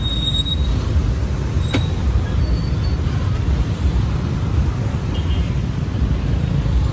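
Steady low rumble of street traffic, with a single sharp click a little under two seconds in.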